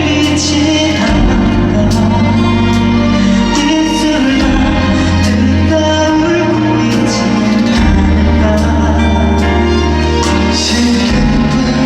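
Live pop music from a concert stage: a singer with band backing, with sustained bass notes that shift every second or two and frequent sharp percussion hits.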